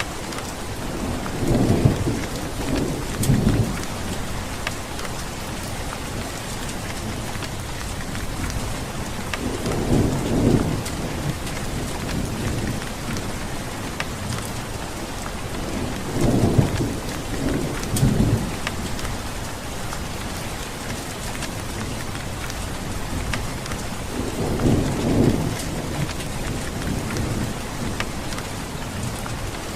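Steady rain falling, with low rolls of thunder rumbling four times: near the start, about a third of the way in, past the middle and near the end.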